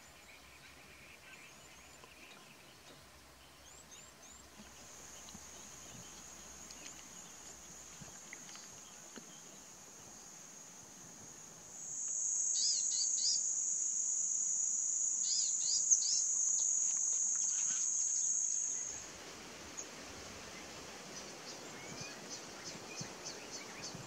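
Outdoor insect drone, a steady high-pitched hum, with scattered short bird chirps over it. Midway the drone grows much louder for about seven seconds with clusters of chirps, then cuts off; a rapid series of chirps follows near the end.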